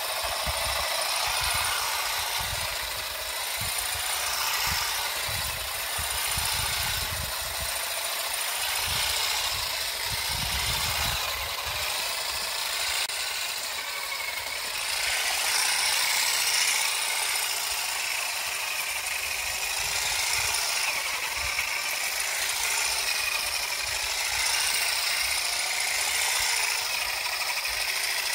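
GeoTech Olive Picker 400 EVO battery-powered electric olive harvester running, its toothed combs beating rapidly in the olive branches with a steady mechanical rattle.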